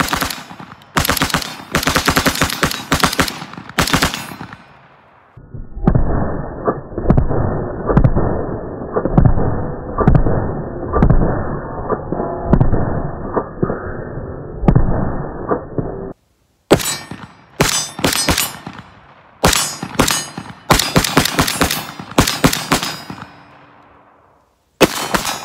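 Rapid gunfire from a short-barrelled AR-15 with a 7-inch 5.56 barrel, with shots coming in quick strings. For about ten seconds in the middle the shots sound muffled and dull, then the sharp strings of fire return, with a last shot near the end.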